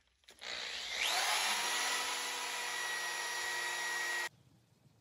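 Electric drill spinning a buffing wheel for polishing: the motor starts about half a second in, whines up to speed with a rising pitch, runs steadily, then cuts off suddenly about four seconds in.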